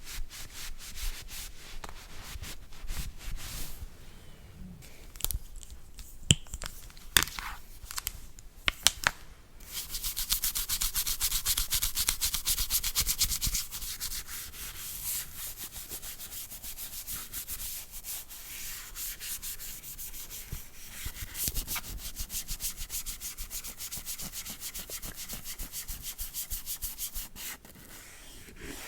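Close-up ASMR brushing and rubbing on the surface of a phone or tablet: scattered strokes with a few sharp taps between about 6 and 9 seconds in, then fast, dense brush scrubbing from about 10 seconds, settling into softer, steady scratching strokes.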